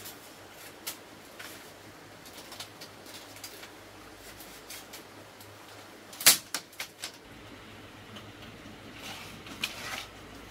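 Split bamboo strips and a bamboo pole clicking and clacking as they are handled and woven into a mat, with one loud sharp knock about six seconds in.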